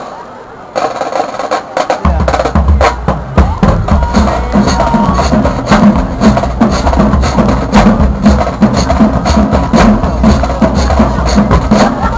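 Marching band drumline playing: rapid, sharp snare strokes start under a second in, and heavy bass drums come in about two seconds in and keep pounding under them.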